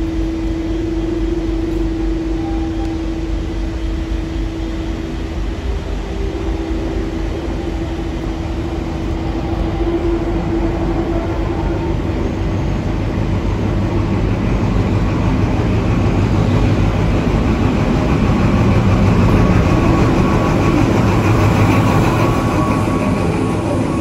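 XPT diesel-electric passenger train arriving: the power car's engine and the rolling of the wheels over the track grow steadily louder as it draws near. The sound is loudest as the train passes close by near the end.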